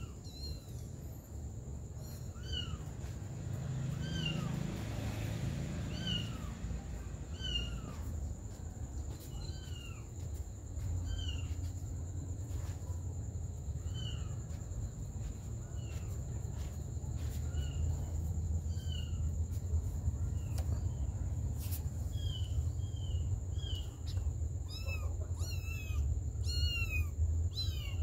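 A young kitten mewing over and over in short, high-pitched mews about every one to two seconds, coming faster near the end, over a low steady background rumble.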